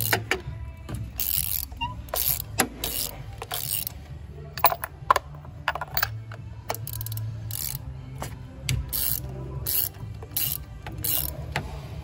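A socket ratchet clicking in short, repeated bursts as it is worked back and forth to loosen spark plugs down the long plug wells of the cylinder head.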